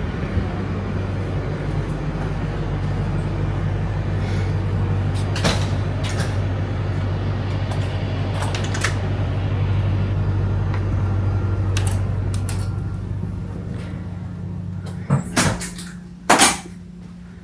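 Steady low mechanical hum that fades out in the last few seconds, with scattered sharp clicks and knocks. The loudest knocks come near the end.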